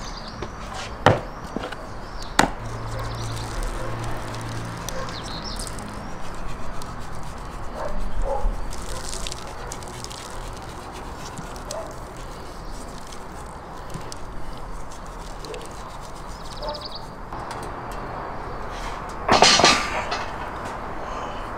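Handling of skewered raw chickens with a couple of sharp clicks of the metal skewers early on, then a loud ceramic scrape near the end as the heavy tandoor lid is lifted off its rim.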